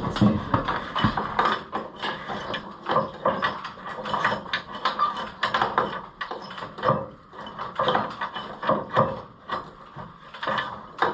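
Worn steel gathering chain of an Oliver 545 combine clinking and rattling in irregular bursts as it is pushed by hand through the header's chain guides and sprockets.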